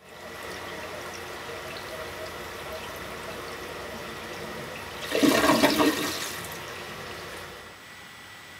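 Toilet flushing: after a few seconds of steady hiss, water rushes loudly about five seconds in, then dies away over the next two seconds.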